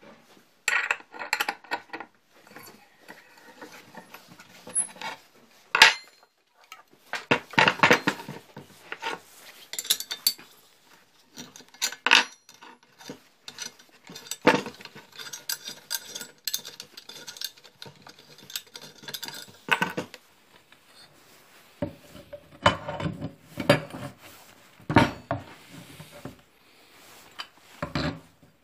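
Steel parts of a homemade angle-grinder stand clanking, knocking and scraping against each other as they are handled and fitted by hand, in irregular bursts; no motor is running.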